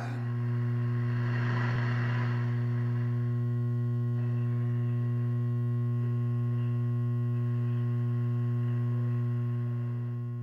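Low, steady electrical hum with a buzzy stack of overtones, holding unchanged and dipping slightly near the end.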